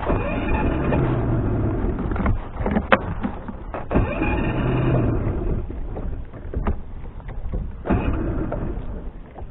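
Outboard motor being cranked on its electric starter in three short bursts, each starting with a click, without settling into a run: the hard start it has had all year.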